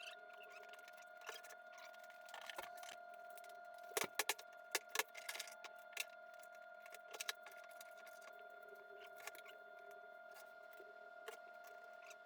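Faint, scattered metallic clinks and knocks of hand tools and hardware, with a cluster of sharper knocks about four to five seconds in, over a steady faint hum.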